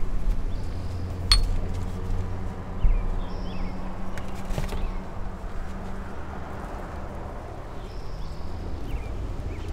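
Metal butchering tools clinking: a single sharp, ringing clink of a hammer against a steel cleaver about a second in, then a duller knock and a light tap. A low steady hum runs underneath.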